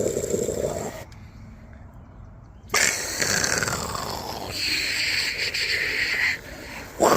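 Aerosol can of brake parts cleaner spraying: a steady hiss lasting a couple of seconds, in the second half, among other noisy handling sounds.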